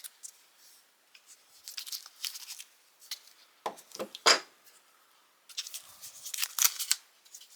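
Tongue-and-groove (channel lock) pliers being handled and worked, with light metal clicks and three sharper clicks about four seconds in, then a stretch of rustling and crinkling near the end.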